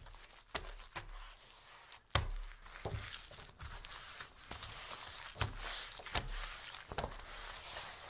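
Very wet, squishy dish towel being pushed and wiped across a wooden table: a steady hissing rub broken by several sharp wet knocks as the cloth is pressed and set down, the loudest about two seconds in.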